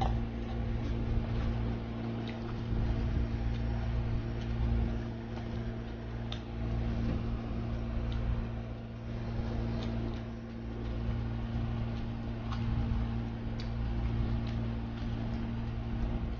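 A person chewing raw vegetables, with faint crunching clicks scattered every second or two over a steady low hum.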